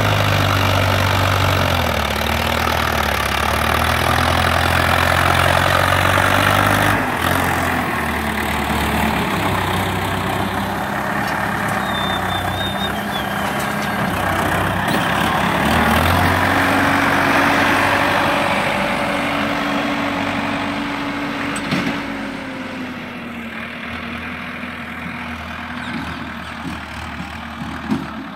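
Preet 60 hp tractor's diesel engine running under load while pulling a kraha earth leveller through loose soil. Its note drops about two seconds in and rises again later, and it grows quieter near the end.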